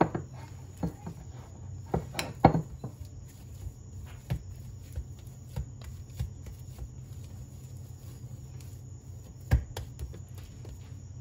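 Hands kneading and pressing soft shortcrust (pâte brisée) dough in a glass bowl and on a countertop: irregular soft thumps and taps, the loudest about two seconds in and again near the end. A steady low hum runs underneath.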